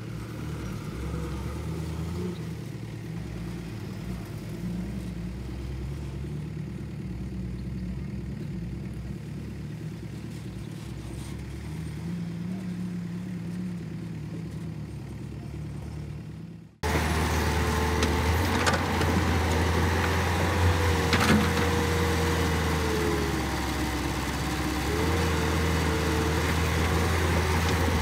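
Diesel engines of Caterpillar crawler excavators working while loading dump trucks: a steady engine drone whose pitch rises and falls as the hydraulics take load. After a cut about halfway through, the sound is louder, with a hydraulic whine that rises and falls and a few sharp knocks.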